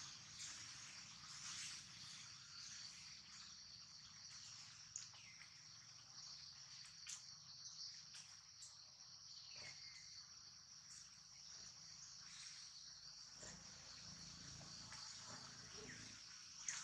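Faint, steady high-pitched insect chorus droning without a break, with a few faint ticks over it.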